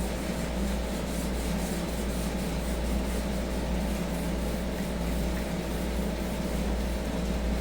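Oil being rubbed by hand into a wooden cutting board: a continuous rubbing over the wood surface, with a steady low hum underneath.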